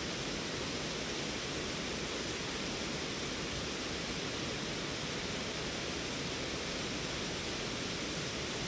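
Waterfall on a creek, water pouring and rushing steadily.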